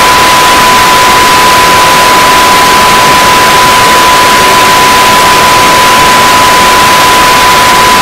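A loud, unchanging wall of static-like hiss with one steady high beep tone running through it, from many sound effects layered and played at once.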